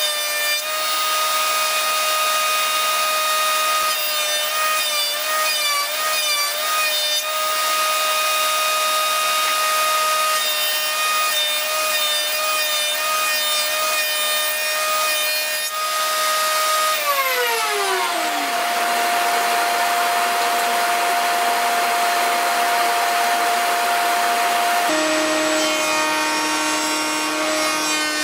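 Table saw cutting an MDF board as it is fed along the fence: a steady high whine over the hiss of the cut. The pitch wavers during the first few seconds, a tone glides downward a little past halfway, and the tone shifts again shortly before the end.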